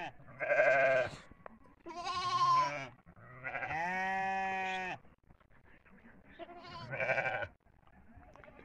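Lambs and goat kids bleating: four separate calls, three of them quavering and one long and steady in the middle.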